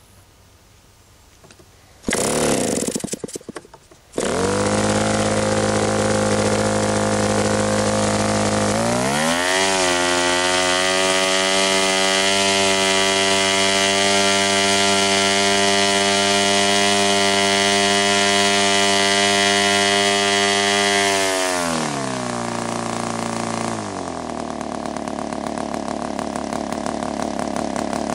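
PAW 60 RC model diesel engine, a two-stroke swinging a wooden propeller, started by hand with no electric starter. About two seconds in it catches with uneven firing, then settles to a steady run. About nine seconds in it speeds up to a higher, steady pitch, then slows back down after about twenty seconds to a lower, slower run.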